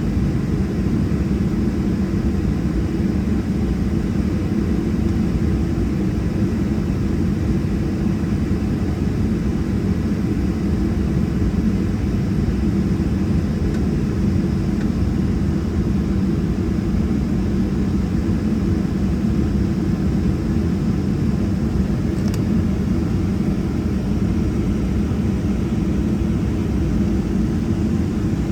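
Steady low cabin drone inside a Boeing 737-700 on the ground, its CFM56-7B engines idling, with no change in pitch or level.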